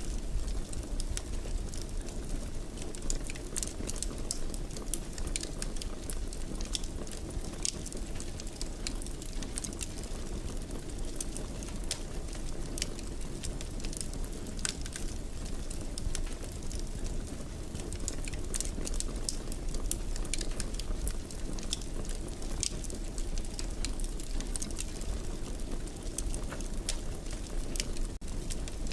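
Wood fire burning in a fireplace: a steady low rush of flames with frequent sharp crackles and pops scattered throughout.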